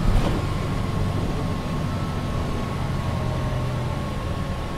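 MAN NG 313 articulated bus's diesel engine running, heard from inside the bus, with a steady whine above the engine note. A short knock sounds just after the start.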